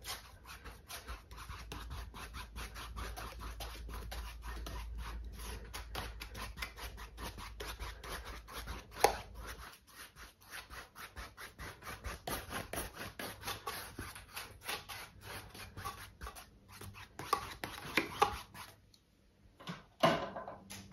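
Paintbrush bristles scratching across a stretched canvas in quick, repeated strokes, several a second, working in acrylic paint. A single sharper click comes about nine seconds in, and the strokes pause briefly near the end.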